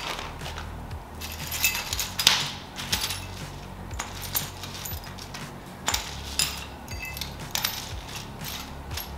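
Loose metal bolts, pins and other hitch-carrier hardware clinking against each other as they are spread out and sorted by hand. The clinks are light, irregular and briefly ringing.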